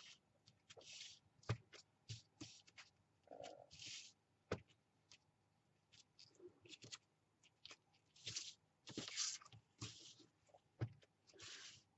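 Hands pressing and patting a sheet of bubble wrap used as a stamp onto a paper puzzle piece on a tabletop: quiet scattered taps with short rustling scuffs of plastic on paper, the scuffs louder and closer together near the end.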